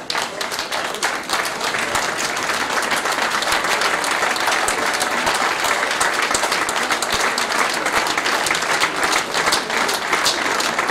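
An audience applauding: a steady round of many hands clapping, given as a tribute the speaker called for. It includes the speaker's own clapping near the podium microphone.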